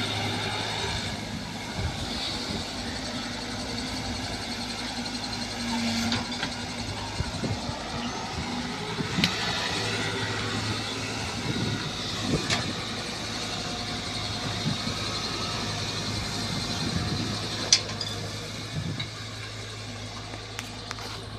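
Caterpillar 312 excavator's diesel engine running steadily while digging and moving soil, with a few sharp knocks along the way.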